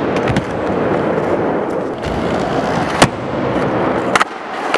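A three-truck skateboard rolling with a steady rumble of wheels, broken by sharp clacks of the board striking; the loudest clack is about three seconds in, another comes just after four seconds.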